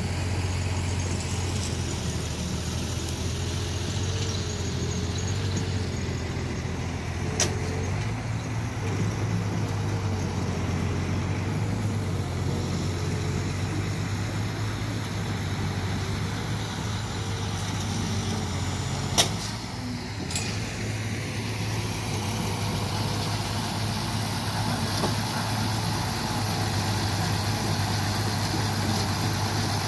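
Diesel engine of a small crawler bulldozer running steadily with a low drone. Sharp knocks cut through it once about a quarter of the way in and twice about two-thirds through.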